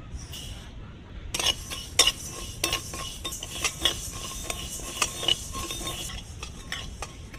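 Flat metal spatula stirring whole spices dry-roasting in a metal kadai: a run of scrapes and ringing clinks of metal on metal as the coriander, cumin, fennel and mustard seeds are pushed around the pan. It starts about a second in and thins out near the end.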